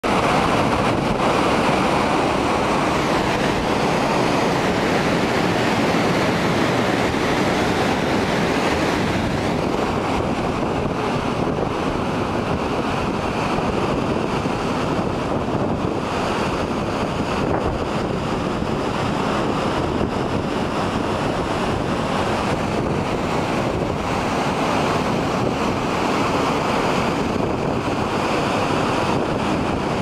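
Waterfall pouring over rock into a plunge pool: a loud, steady rush of falling water.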